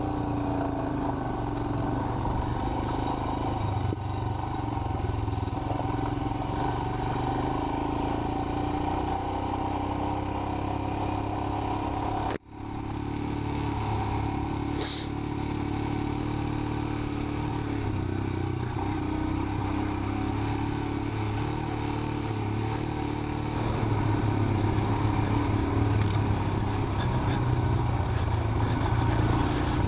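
Royal Enfield Himalayan's single-cylinder engine running steadily as the bike is ridden along a rough dirt track. The sound cuts out for an instant a little under halfway through, and it runs louder near the end.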